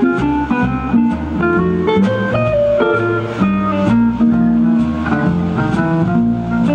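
Background music: a plucked guitar playing a melody of separate notes over a bass line, with no voice.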